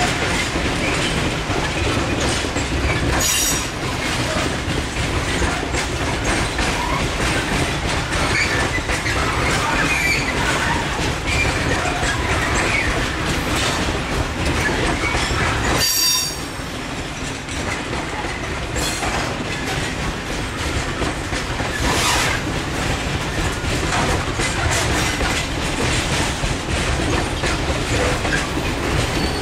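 Container freight train's wagons rolling past on the rails: a steady noise of wheels running over the track, broken by a few brief high-pitched wheel squeals, the sharpest about halfway through.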